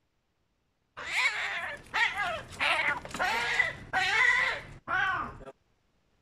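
Cats fighting: a cat yowls in about five drawn-out wails that rise and fall in pitch, starting about a second in and breaking off suddenly near the end.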